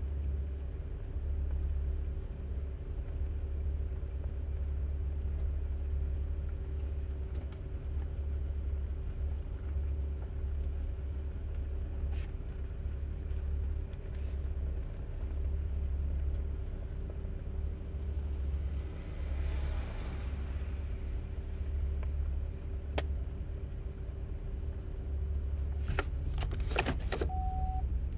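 Chevrolet Camaro's engine idling with a steady low rumble, heard from inside the cabin while the car stands still. A few sharp clicks and a short beep come near the end.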